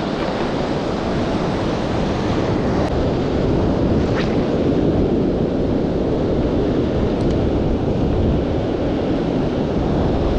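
Steady rush of surf breaking on a sandy beach, with wind buffeting the action camera's microphone.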